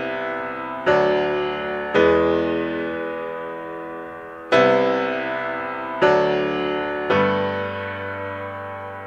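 Background music: slow piano chords, each struck and left to ring out and fade, five in all.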